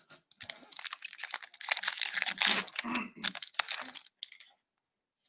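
Foil wrapper of a 2014-15 Upper Deck SP Authentic hockey card pack being torn open and crinkled by hand. It makes a dense crackle from about half a second in until about four and a half seconds, loudest in the middle.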